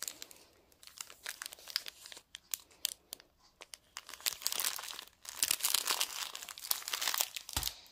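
Clear plastic packaging crinkling in handling: the sleeve of bagged diamond-painting drills and the canvas's wrapping. It comes as a run of sharp crackles, busier in the second half.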